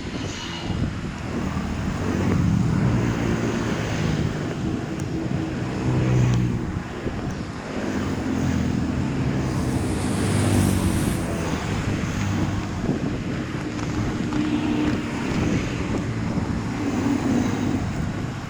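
Rainwater rushing and gurgling into a street culvert drain as the clog is cleared.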